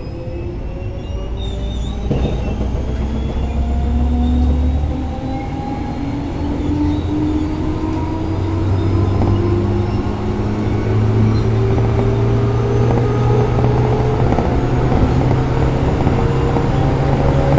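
205 series electric train pulling away and accelerating. Its motor and gear whine climbs steadily in pitch over a deep hum. This is the start-up that carries the odd wavering, undulating noise the uploader points out at departure.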